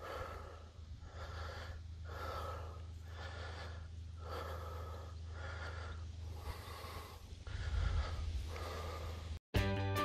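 A person breathing hard, about one breath a second, over a steady low rumble. Music cuts in just before the end.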